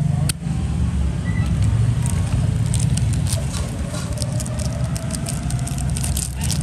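Zippo lighter being handled: a sharp click shortly after the start, then a quick run of light metal clicks and ticks through the middle, over a steady low rumble.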